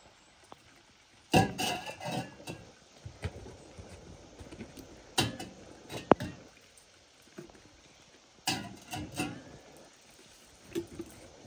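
Small metal cups and pots clinking and knocking against a stainless steel bowl, in short irregular clatters a few seconds apart.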